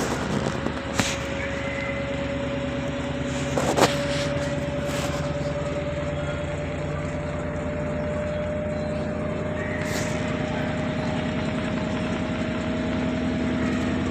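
Samsung inverter washing machine running, its motor giving a steady whine that rises slowly in pitch, with a few sharp knocks in the first four seconds. The machine has a shaking and noise problem that is put down to worn suspension rods.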